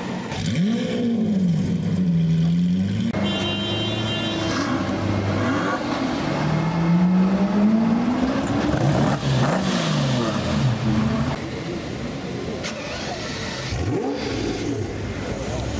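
Car engines revving, the engine pitch climbing and falling in several throttle blips, with abrupt changes in the engine sound about three seconds in and again near the end.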